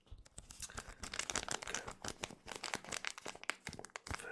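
Foil wrapper of a Pokémon TCG booster pack crinkling and crackling as it is handled and torn, a dense run of sharp little crackles that grows louder about a second in.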